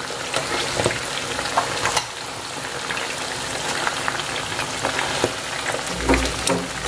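Chicken wings deep-frying in hot oil, a steady sizzle, with light clicks of metal tongs against the pan and wire mesh strainer as the pieces are lifted out. A dull knock about six seconds in.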